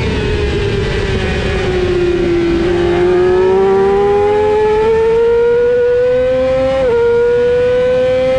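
Yamaha R6's inline-four engine heard from on board at speed: the revs fall for about two and a half seconds, then climb steadily under acceleration, with a brief dip about seven seconds in from a gear change before rising again.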